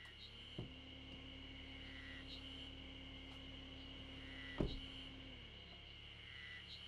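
A van's driver door shutting once with a single sharp thud about two-thirds of the way in, after a lighter click near the start, over a steady low hum and a steady high-pitched background drone.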